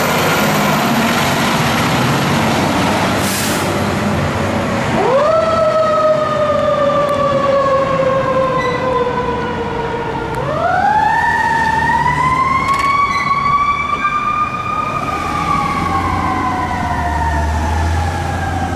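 Siren of a Seagrave tower ladder fire truck responding to a call, over the truck's engine as it pulls away. The wail sweeps up quickly about five, ten and fifteen seconds in, then slides slowly down between each rise.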